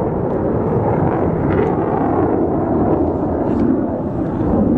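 JF-17 Thunder fighter jet's engine roaring steadily during a low display pass.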